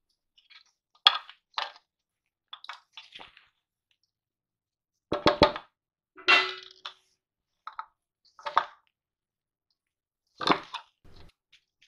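Hand mixing a crumbly jaggery-and-dry-fruit laddu mixture in a steel plate: about eight short, scattered clinks and scrapes of fingers, mixture and bangles against the metal, the loudest about five seconds in.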